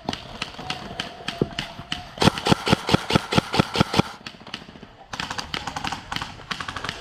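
Airsoft gun firing a rapid string of shots, about six a second for roughly two seconds, beginning about two seconds in; a fainter, faster string of shots follows near the end.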